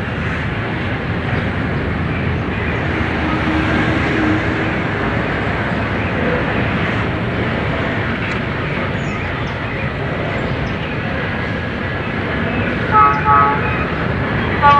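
Freight train of covered hopper wagons rolling past, a steady rumble of wheels on rail. A couple of brief high tones cut through it about thirteen seconds in and again right at the end.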